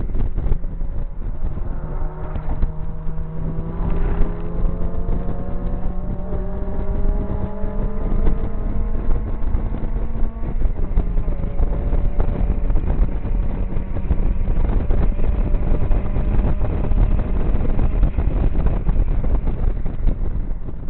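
Mazda MX-5 Mk1's 1.8-litre four-cylinder engine, running through a full decat exhaust, accelerating hard at track speed: its pitch rises steadily for about eight seconds, breaks about halfway through, then runs on at a steadier pitch. Heavy wind buffeting on the microphone in the open cockpit.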